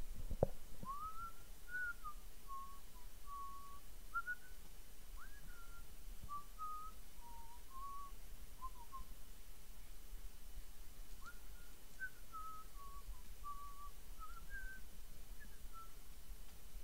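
A person whistling a wandering tune to himself, a string of short notes sliding up and down in pitch, with a pause of about two seconds midway. A couple of sharp clicks right at the start.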